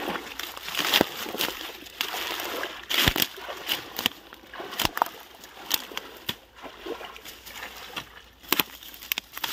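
Shallow muddy water splashing and sloshing irregularly, with several sharp slaps.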